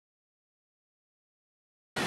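Digital silence, then loud steady noise with high whining tones cuts in abruptly right at the end.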